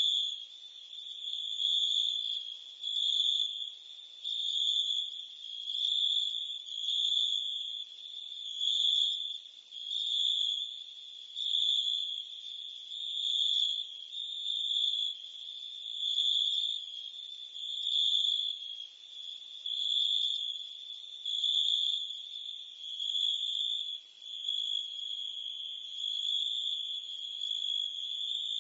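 Crickets and cicadas chirping together: a steady high-pitched trill that swells and fades regularly, just under every two seconds.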